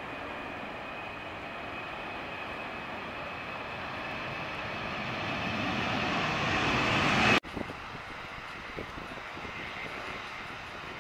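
Boeing 737's jet engines at takeoff thrust, growing steadily louder as the airliner rolls down the runway and lifts off. About seven seconds in, the sound cuts off abruptly to a quieter, steady jet engine noise.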